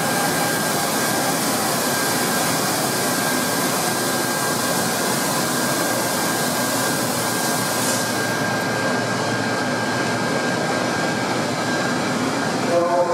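Steady roar of heavy machinery with a faint high whine held throughout, unchanging in level.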